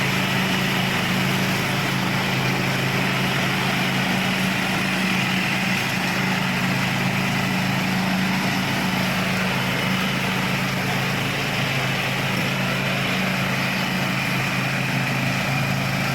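Ride-on zero-turn lawn mower's engine running steadily under load with its cutting deck spinning, a constant low drone with a hiss over it.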